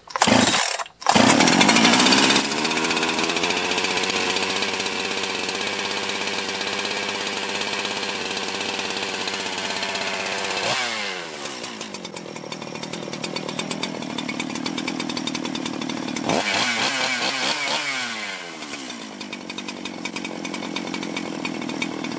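Freshly rebuilt two-stroke chainsaw, pull-started with its decompression valve pushed in, catches about a second in and runs fast before holding a steady speed. About halfway through its revs fall away to idle. A few seconds later it is briefly revved and drops back to a steady idle.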